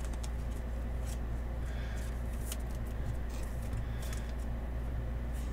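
Faint rustling and light clicks of trading cards and a clear plastic card sleeve being handled, over a steady low electrical hum.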